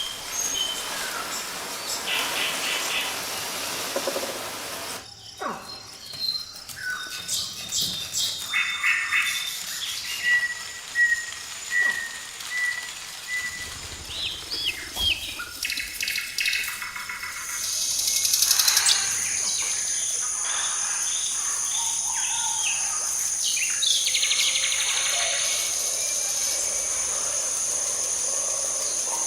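Forest birds chirping and calling in short, varied phrases, including a run of evenly spaced short notes. About two-thirds of the way through, a steady high-pitched insect drone starts and carries on under the bird calls.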